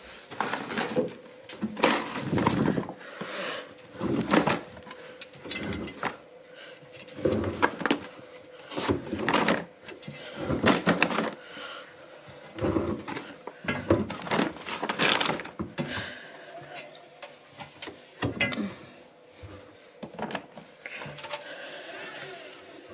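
Laundry being unloaded by hand from a front-loading washing machine: the door opens and wet clothes and towels are pulled out, giving irregular rustles, bumps and handling noises with a faint steady hum underneath.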